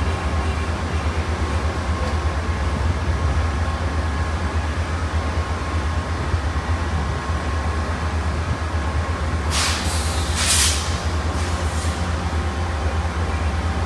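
Union Pacific diesel locomotive idling at a standstill with a steady low rumble. A few short hisses of air come through about ten seconds in.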